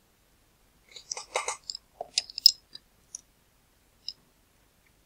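Small plastic LEGO pieces clicking and rattling as a hand sorts through a pile, a quick cluster of clicks followed by a couple of single ticks.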